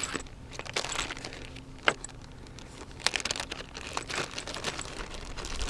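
Handling noise of a rifle and gear: scattered light clicks and rustles, with a sharper click about two seconds in and another about three seconds in.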